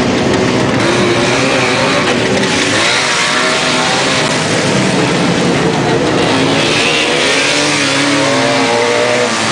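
Several Trabant race cars' two-stroke engines revving hard and overlapping as the cars accelerate through a dirt-track bend and pass close by. The engine notes rise and fall as each car goes by.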